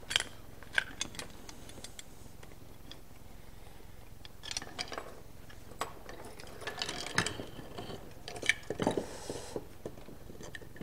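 Longspring steel foothold traps being set by hand: scattered metallic clicks and clinks as springs are pressed down and jaws, dog and pan are worked, with a brief rattle near the end.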